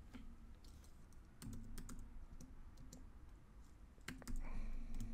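Computer keyboard keystrokes and a few clicks, a sparse, irregular scattering of separate taps as a few numbers are typed in.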